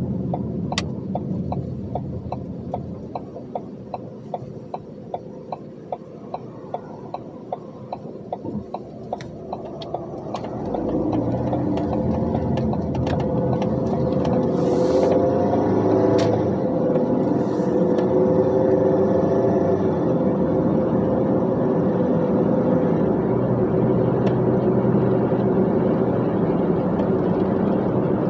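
Dump truck's diesel engine running low, with a regular ticking about two to three times a second; about ten seconds in the ticking stops and the engine rises as the truck pulls away, then runs on steadily under load.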